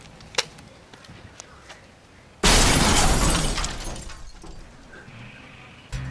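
A sudden loud shattering crash, like breaking glass, added as a comic sound effect, fading away over about two seconds. Music starts near the end.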